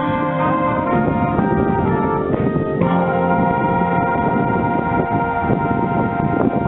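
Marching band brass holding sustained, loud chords, shifting to a new chord about three seconds in, with heavy wind buffeting the camera microphone.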